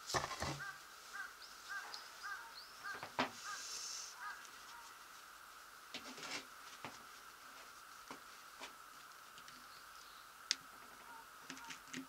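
Clicks and light knocks of a Robin engine's recoil starter parts, the plastic rope pulley and its coiled spring, being handled on a table, with a sharper click about ten seconds in. In the first four seconds a bird calls in a quick series of short notes, over a faint steady high tone.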